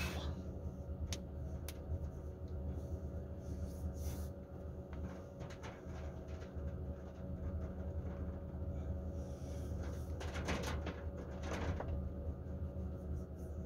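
Car engine idling, heard from inside the cabin as a steady low hum. A few small clicks sound over it, and two short rustles come about ten and twelve seconds in.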